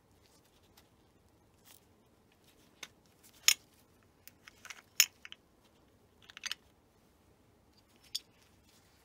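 Bayonet lens caps and lens hood being twisted on and off a Rolleiflex 2.8F twin-lens camera. They make a series of sharp metal clicks with small scrapes, loudest about three and a half and five seconds in.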